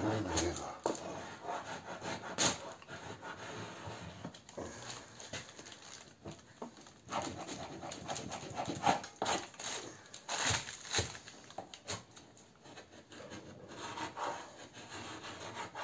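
Metal hive scraper rasping old wax off a wooden beehive frame in short, irregular strokes, cleaning it down to bare wood.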